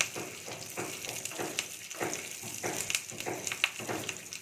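Hot oil sizzling in a small aluminium tempering pan with curry leaves, green chillies and mustard seeds frying, a steel spoon stirring and scraping against the pan. The mustard seeds have not yet begun to pop.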